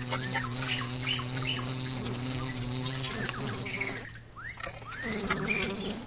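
Insect buzzing: a steady low hum with overtones that fades out about three and a half seconds in and returns, wavering, near the end. Short high chirps sound over it throughout.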